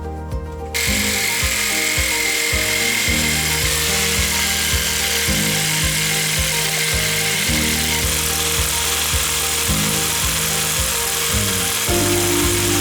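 A power tool running with a loud hissing, grinding noise and a faint steady whine. It starts about a second in and stops just before the end, over background music.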